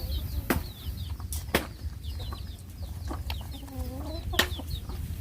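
Chickens in the background: many short, high peeps and one lower wavering cluck near the middle, with a few sharp knocks.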